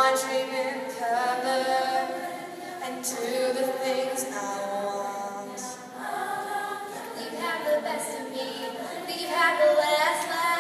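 Large girls' choir singing in harmony, many voices holding long notes and moving together from chord to chord.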